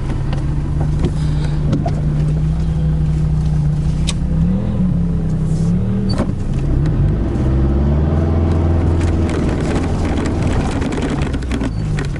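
Toyota Hilux engine driving off-road under throttle. The note holds steady, then rises and falls with the revs mid-way and drops lower later on, with a few sharp knocks and clatters from the truck over the rough ground.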